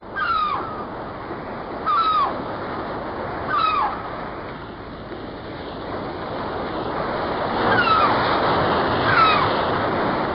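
Sea-surf sound effect: a steady wash of surf that swells about two-thirds of the way in. A short falling call repeats every couple of seconds over it.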